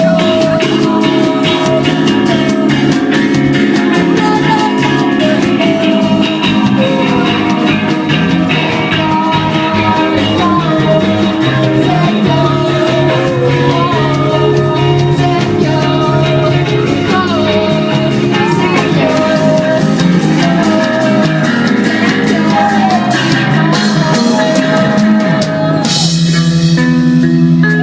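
A rock band playing live, with a vocalist singing a gliding melody over guitar and a drum kit keeping a steady beat.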